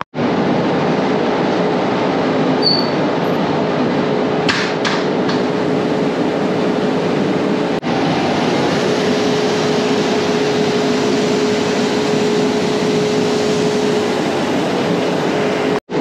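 Heavy farm machinery running steadily: a loud, even rush with a steady hum, broken briefly about eight seconds in.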